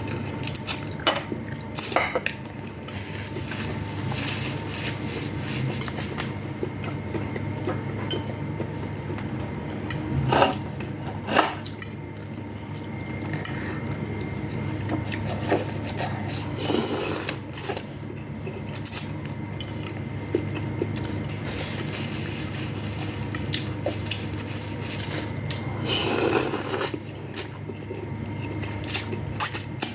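Spoons clinking and scraping against bowls and plates while eating noodles, rice and soup, with scattered sharp clinks and a couple of longer wet, liquid-sounding stretches, over a steady low hum.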